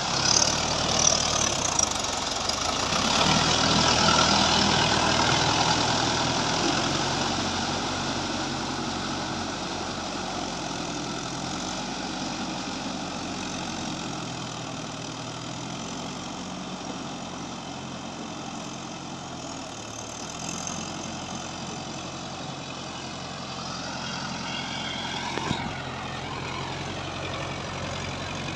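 Diesel tractor engine running under steady load while its rear rotavator churns through the flooded, muddy paddy field during puddling. Loudest in the first few seconds, it fades as the tractor moves away and grows slightly again near the end.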